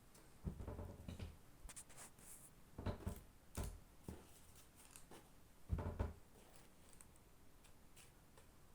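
Slime being squished and pressed by hand: irregular squishes and small crackling pops, the loudest squish about six seconds in.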